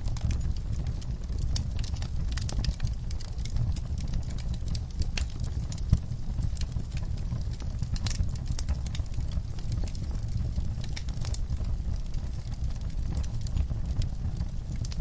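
Wood fire crackling: frequent irregular sharp pops and snaps over a steady low rumble of the burning fire, with one louder pop about six seconds in.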